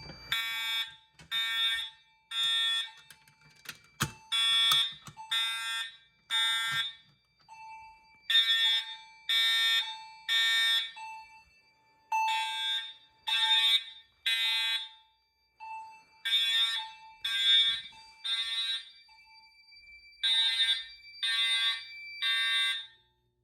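Fire alarm horn strobes (Integrity series) sounding together in a temporal-3 pattern: three short blasts, a pause, repeated six times, signalling a manual pull-station activation. Underneath, a chime strobe rings on steadily, out of step with the horns.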